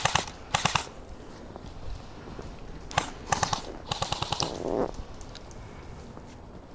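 Airsoft guns firing short full-auto bursts of rapid clicking shots: a couple of bursts at the start, then a cluster of several more about three to four and a half seconds in.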